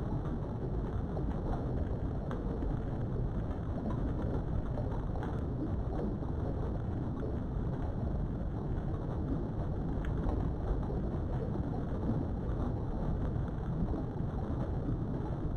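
Steady low rumbling noise with no speech, and a few faint clicks.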